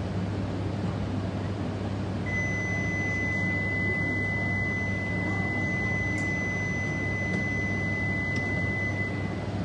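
A steady, single high electronic tone comes on about two seconds in and holds for about seven seconds, stopping just before the end: a platform departure signal for the Shinkansen about to leave. Beneath it runs the low steady hum of the standing E3 series train.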